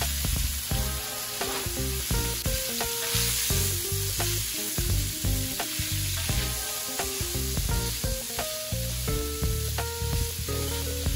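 Sliced smoked sausage sizzling in hot oil in a frying pan, with a steady hiss and the scrape of a wooden spatula stirring it near the end. Background music with a melody and bass line plays over it.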